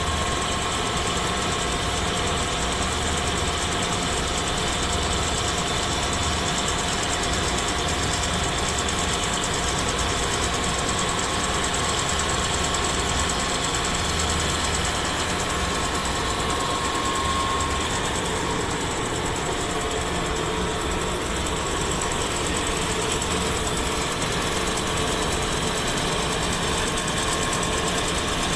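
CNC notching machine running steadily as it cuts rows of slots into a steel cylinder: a dense mechanical drone with a constant whine.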